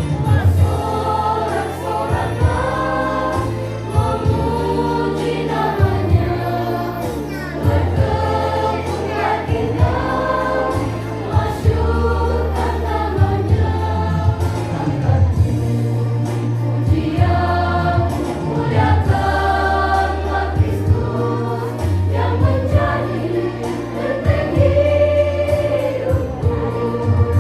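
A mixed choir of young men and women singing a Christian praise song in harmony, over an accompaniment with a steady bass line.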